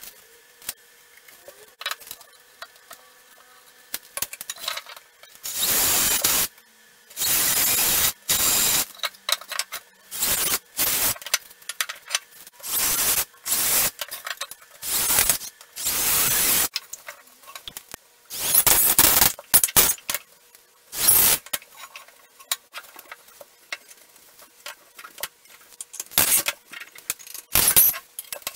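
Work on a pine bench frame: about a dozen harsh noisy bursts, each up to a second long, in the middle stretch, with short clicks and knocks of timber and small parts before and after.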